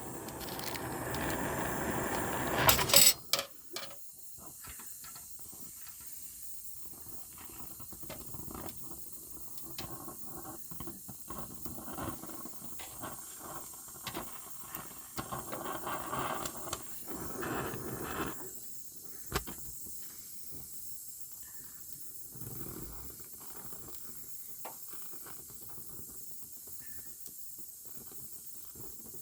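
Welding: a steady crackling hiss for about three seconds that stops with a few sharp clicks, then quieter scattered ticks and crackles.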